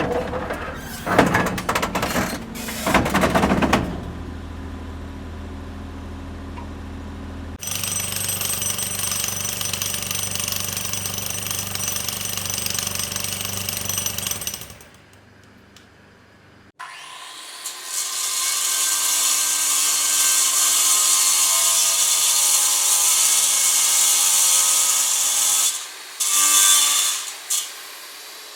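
Power tools in a series of separate clips. It opens with a few seconds of sharp knocks. A motor then runs steadily in a low hum and grows louder at about 8 seconds in. After a short pause, a loud, high-pitched grinding runs for about nine seconds and ends in two short bursts.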